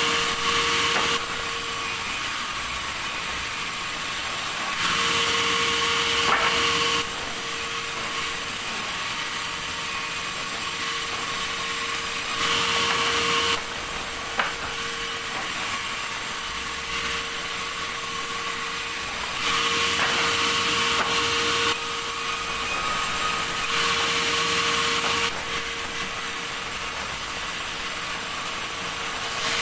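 Sawmill saw running on logs, with a steady whine and a hiss that grow louder for a second or two at a time, several times over.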